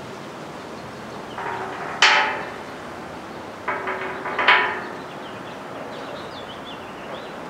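Two sharp metallic clanks on a steel winch bumper, about two seconds in and again about halfway through. Each is preceded by a short scrape and followed by brief ringing.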